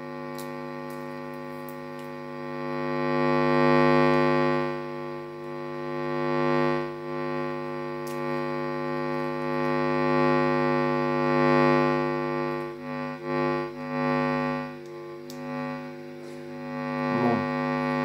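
50 Hz mains hum, a steady buzzing drone, coming through a Marantz CRS-8000 receiver's speakers, induced in its circuits by the magnetic field of a toroidal power transformer held close to the chassis. The hum swells and fades as the transformer is moved, loudest about four seconds in and again near eleven seconds, dipping after that but never vanishing.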